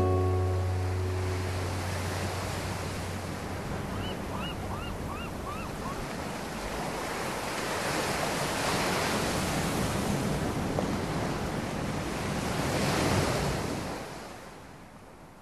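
Steady outdoor rushing noise that swells, then fades out near the end. A short run of about five small bird chirps comes a few seconds in.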